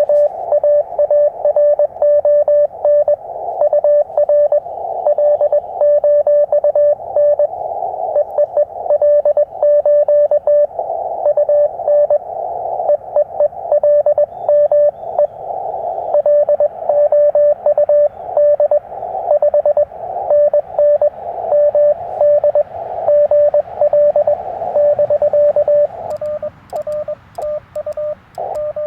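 Morse code (CW) from a Yaesu FT-891 transceiver: a single steady tone keyed on and off in dots and dashes, over the hiss of the receiver's narrow filter. Near the end the code turns weaker and more broken.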